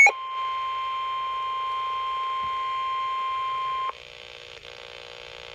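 NOAA Weather Radio 1050 Hz warning alarm tone: one steady high tone for nearly four seconds, the signal that a warning message follows. It cuts off suddenly, leaving faint radio receiver hiss and hum.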